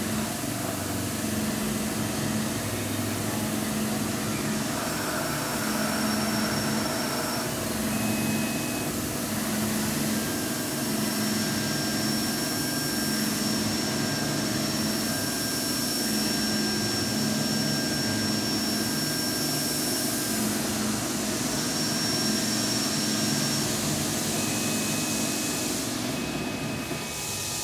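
Tormach CNC lathe running a cycle with the flood coolant on the turret tool: a steady hiss of coolant spray against the enclosure, with thin high motor whines coming and going. Near the end the hiss briefly thins.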